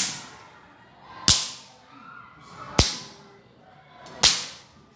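Sharp slaps of a bare forearm brought down onto another person's forearm, four blows about a second and a half apart, each with a short ringing tail: a pencak silat bone-hardening drill, conditioning the forearms by repeated striking.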